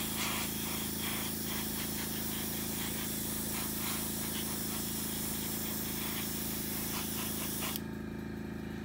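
Gravity-feed airbrush spraying paint in a steady hiss, which cuts off about a second before the end.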